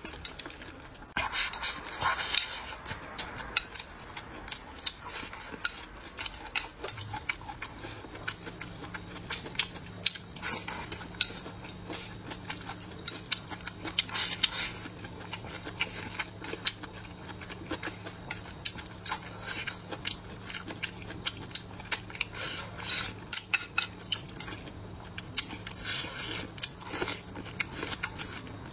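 Chopsticks clicking and scraping against a bowl, with close-miked chewing, as braised pork trotter, bamboo shoots and rice are eaten. The clicks come many times, irregularly, throughout.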